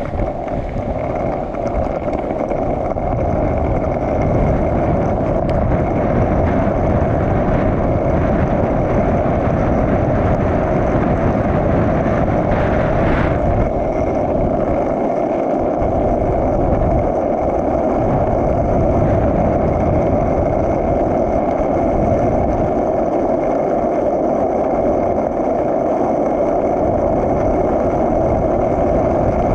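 Skateboard wheels rolling fast down a rough concrete road hill: a steady, rough roar that builds over the first few seconds as the board picks up speed. Wind buffets the microphone throughout.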